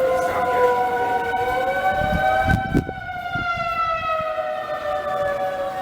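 Outdoor tornado warning sirens wailing, more than one at a time at different pitches, each slowly falling and rising in tone. A brief low rumble comes under them about two seconds in.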